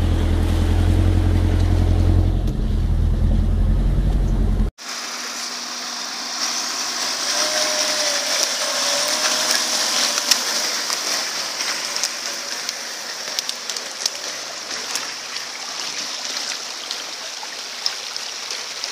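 4x4 engine running steadily on a muddy forest track. About five seconds in it cuts off abruptly to a thin, steady hiss with scattered clicks.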